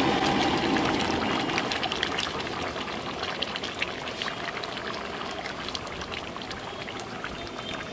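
Chicken curry simmering in a wide aluminium pan: the gravy bubbling, with many small pops and crackles over a steady hiss, slowly getting quieter.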